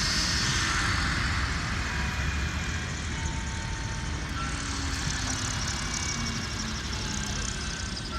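Helicopter rotor and turbine running steadily, getting gradually quieter over the first few seconds.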